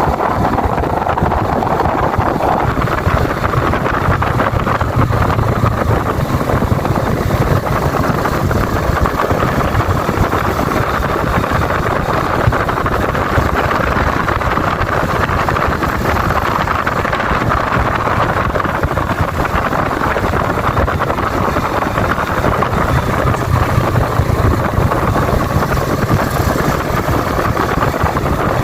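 Yamaha Vega New's stock four-stroke single-cylinder engine running steadily while the motorcycle is ridden.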